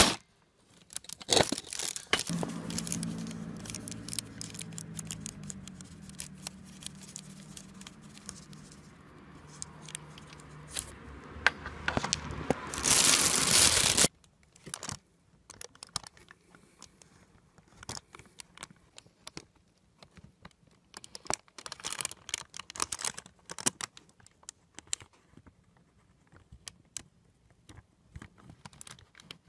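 Plastic sheeting crinkling and rustling as it is handled, swelling to its loudest just before it cuts off abruptly about halfway through. After that, used motorcycle engine oil drains from the drain-plug hole in a stream onto the plastic sheet, with faint scattered pattering.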